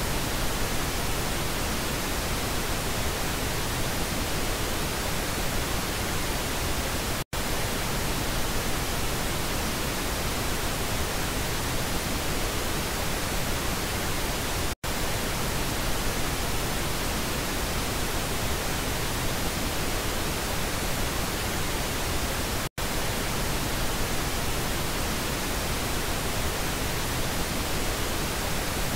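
Pink noise test signal: a steady, even hiss, broken three times by a brief gap as it switches between the left and right speaker channels.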